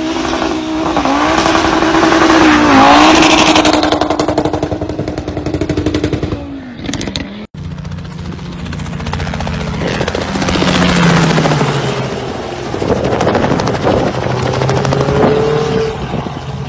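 Car engines at speed, from two clips. In the first, a car passes loudly about three seconds in. After an abrupt cut about seven and a half seconds in, a second engine runs and rises in pitch near the end.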